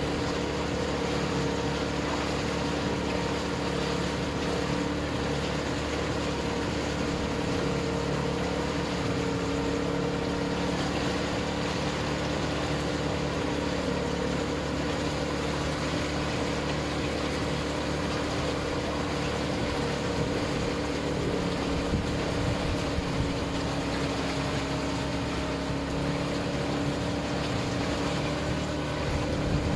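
Motorboat engine running steadily at constant speed, a continuous drone with a couple of louder knocks near the end.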